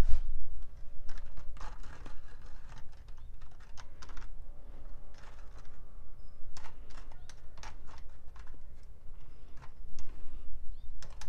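Screwdriver probing and stirring foam in gasoline in a plastic tub: irregular light clicks and taps of the steel shaft against the tub's plastic.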